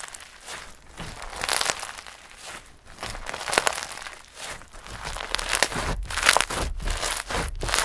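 Slime being squished and kneaded by hand, making irregular crackling, crunchy bursts that come in swells about once a second.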